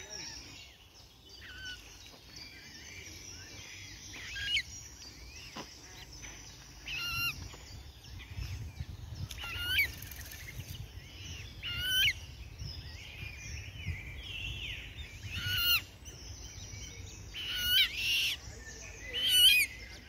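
A bird calling again and again: short, sharp calls every two seconds or so, the loudest near the end.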